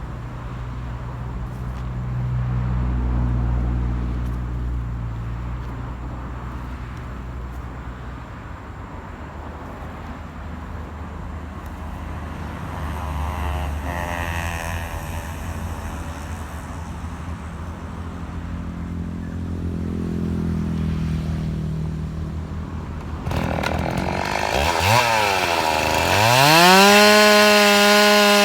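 A low engine rumble rises and falls for most of the clip. Near the end a two-stroke chainsaw revs up, its pitch sweeping up and then holding steady at full throttle, ready to cut into the mango trunk.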